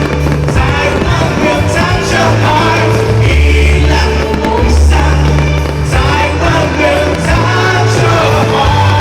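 Loud song with singing over a heavy bass line, played for the lantern show.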